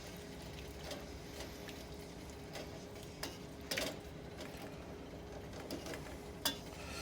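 A few scattered light clicks and taps of a utensil against the pot as flour is stirred into the simmering onion soup, over a faint steady hum.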